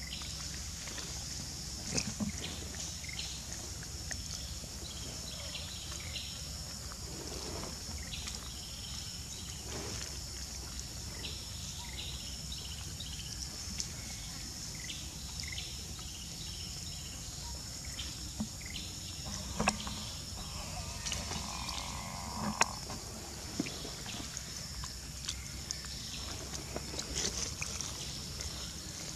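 Outdoor ambience: a steady high-pitched insect drone over a low rumble, with scattered small clicks and taps, and a short rougher sound about twenty seconds in.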